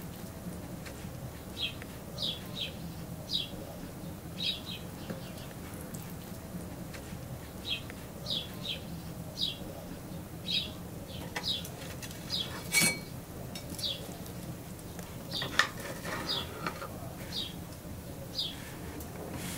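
A songbird repeating a short, falling chirp about once a second over a steady low background. About two-thirds of the way through comes a single sharp, ringing clink, followed by a few lighter clicks.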